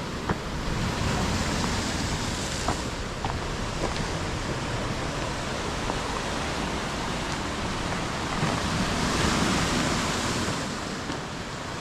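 Ocean surf washing along the shore, mixed with wind, a steady rushing that swells louder twice, about a second in and again near the end.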